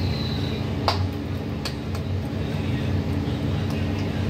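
A steady low mechanical hum, with two sharp light clicks about one and two seconds in as hands work paratha dough.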